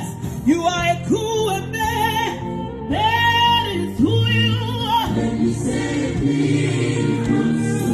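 A woman singing gospel with sweeping, bending runs, and a choir joining with held chords about five seconds in.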